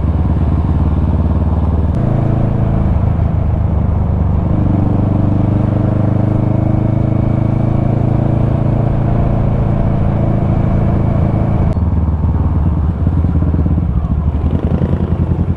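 Kawasaki ER-6n's parallel-twin engine running under way, its note stepping up about two seconds in and again a couple of seconds later, then dropping near the end as the bike eases off.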